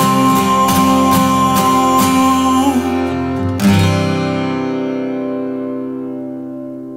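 Acoustic guitar strumming under a long held high note. A final chord is struck about three and a half seconds in and left ringing, fading out to end the song.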